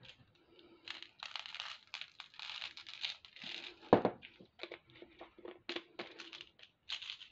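Plastic bead packaging crinkling and rustling as it is handled, with a sharp knock about four seconds in and a few lighter clicks.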